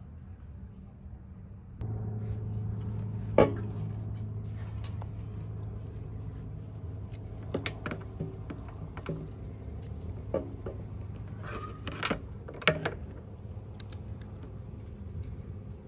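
Long-nose pliers working a rubber fuel drain hose off its fitting under a motorcycle fuel tank: scattered sharp clicks and taps of metal, the loudest about three seconds in and twice near twelve seconds. A steady low hum begins about two seconds in.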